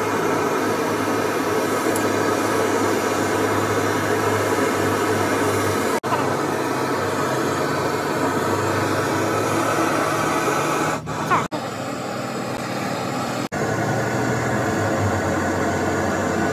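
Steady machine noise with a low hum, like a motor or blower running, broken by brief drop-outs about six, eleven and thirteen and a half seconds in.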